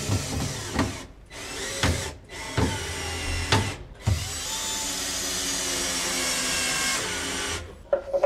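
Electric power tool running in several short bursts, then in one longer steady run of about three and a half seconds.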